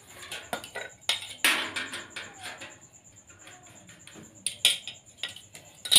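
Steel square and ruler being handled against a galvanized light-steel frame and tiled floor: a series of light metallic clicks, taps and short scrapes, with the sharpest ones about a second and a half in and again near the end.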